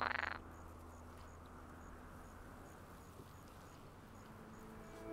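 A short rising swoop sound effect cuts off about half a second in. After it there is a faint steady outdoor ambience: a high insect chirp repeating about twice a second over a low hum.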